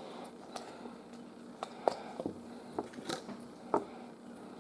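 Faint, scattered clicks and light handling noises, about eight in all, as the folded cardboard hang tag on a Ty plush toy is handled and opened.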